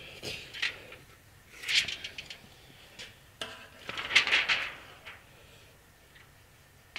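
Thin stainless steel heat-treating foil crinkling and rustling under a hand, in three short bursts, as a steel block is handled on it for wrapping.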